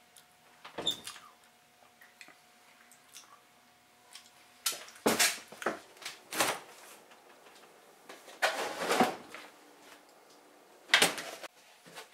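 Refrigerator door being opened and handled: a string of sudden knocks, bumps and rattles. They come in clusters, with a loud one about a second in, several from about five seconds on, and the loudest near the end.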